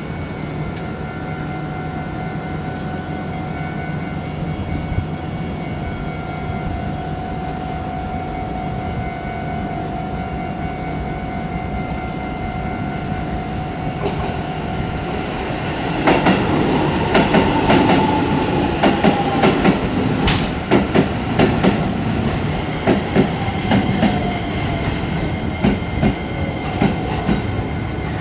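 Japanese railway level-crossing alarm ringing very fast. About sixteen seconds in, an electric train passes over the crossing: its wheels clatter over the rail joints and a whine falls in pitch.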